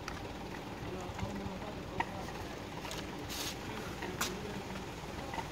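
Paint roller working a textured wall coating over a rendered wall, a faint rough rolling sound with a few sharp clicks and a short hiss.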